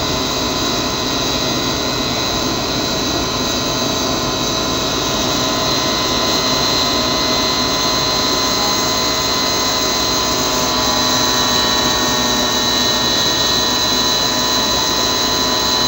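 Homemade tin-can jet engine running steadily: a continuous rushing noise with a high, steady whine on top.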